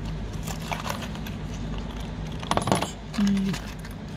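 Small metallic clinks and rattles as new spark plugs are handled in and out of their cardboard boxes, with a cluster of sharp clicks about two and a half seconds in, followed by a brief low hum.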